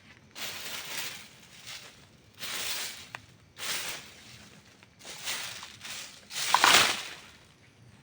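Campfire burning: five surges of hissing, crackling noise, each half a second to a second long, the loudest near the end, with a few sharp pops among them.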